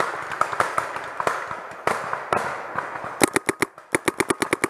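Paintball marker firing a rapid string of shots, about eight a second, starting about three seconds in, after scattered quieter pops and rustling.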